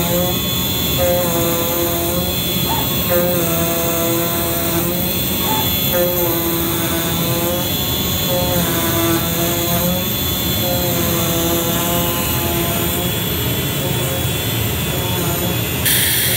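Digital flatbed cutting machine running: a steady rush of noise under motor whines that hold one pitch for about half a second to a second, then jump to another, as the cutting head moves and changes direction. The sound changes abruptly near the end.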